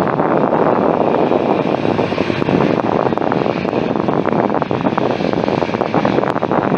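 Boeing 787-9 airliner's jet engines, a loud steady rush of noise, with some wind on the microphone.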